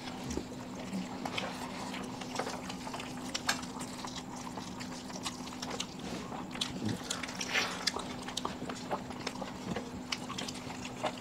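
People chewing mouthfuls of mutton biryani, with scattered short clicks and smacks of eating, over a steady low hum.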